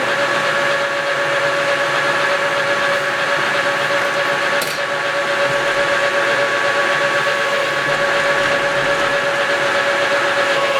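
Metal lathe running steadily under power, its gearing giving a constant whine, while a shaft is being turned.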